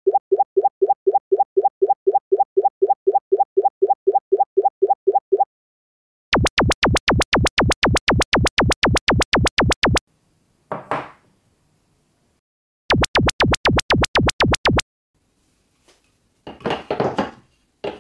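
Electronic music sounds: a quick run of short pitched beeps, about five a second, for some five seconds, then two runs of fast, sharp electronic clicks. Between and after the click runs come short clattering knocks of wooden blocks being set down.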